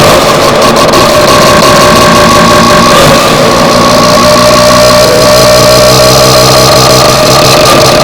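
Harsh noise music: a dense wall of heavily distorted noise at full loudness that cuts in abruptly. Steady high drones hold throughout, and lower droning tones join after about three seconds.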